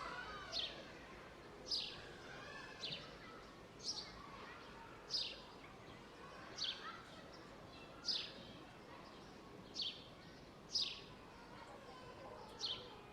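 A bird calling over and over, a short high note that slides downward, about ten times at a steady pace of roughly one per second. Softer calls of other birds sound behind it over a steady outdoor background.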